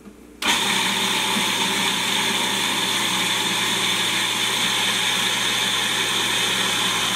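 Food processor running, its blade mixing a pecan, brown sugar and flour crumb with melted butter. The motor starts suddenly about half a second in and runs steadily with a constant hum.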